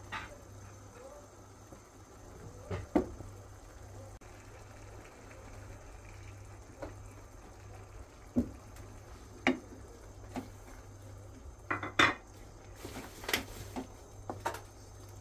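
Wooden spoon stirring eggs into a tomato and pepper menemen in a frying pan: scattered knocks and scrapes of the spoon against the pan, loudest about three seconds in and again near twelve seconds.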